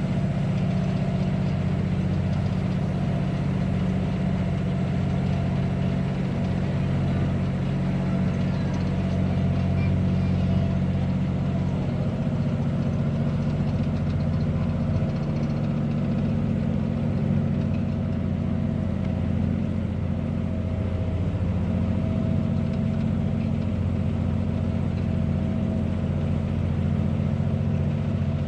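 Tour boat's engine running steadily with a low, even drone; its tone shifts slightly about twelve seconds in.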